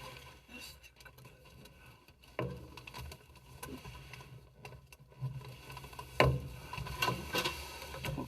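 Irregular taps, knocks and rustling of hands working tape over a joint in gas furnace ductwork, sealing it against air leaks. A sharp knock about six seconds in is the loudest.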